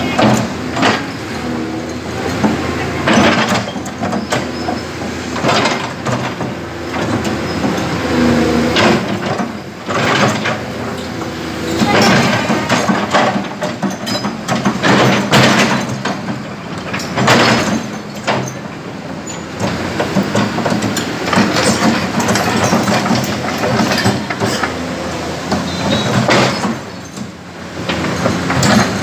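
Tracked hydraulic excavator working: its diesel engine runs steadily while the steel bucket repeatedly scrapes and knocks against broken concrete and soil, with chunks of rubble clattering.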